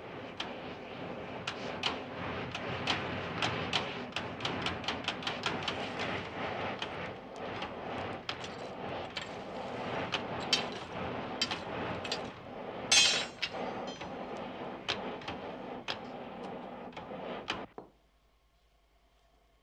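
Forge fire burning and crackling, with many sharp irregular snaps over a steady rushing noise and a brief louder hiss past the middle. It cuts off abruptly near the end.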